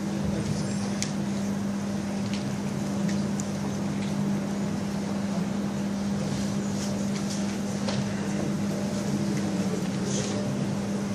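Steady low hum over a hiss of room noise, with a few faint clicks and knocks.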